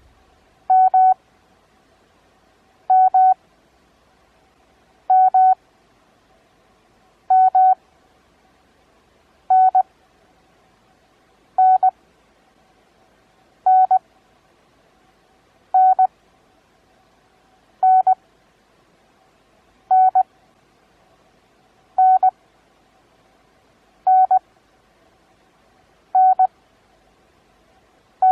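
Morse code practice tone keyed at 20 words per minute with Farnsworth spacing at 9 words per minute: one steady-pitched beep letter about every two seconds. First come four two-element letters, then a run of single-element letters (E or T).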